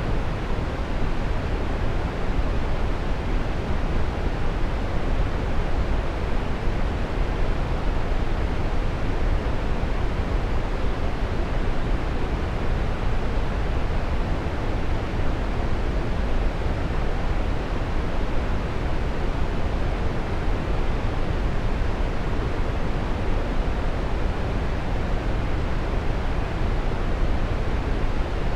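Waterfall: a steady, even rush of falling water, heaviest in the low end.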